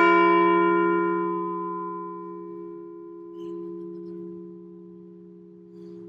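A large memorial bell ringing out after a single toll for a veteran whose name has just been read: its higher overtones fade within about two seconds while a low hum lingers and slowly decays, swelling slightly about three seconds in.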